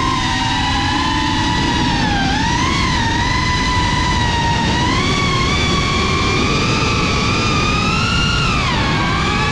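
Brushless motors and ducted propellers of a GEPRC Cinelog 35 FPV cinewhoop whining in flight over a rushing noise, picked up by the onboard GoPro. The pitch wavers and dips briefly twice, about two seconds in and near the end, as the throttle changes.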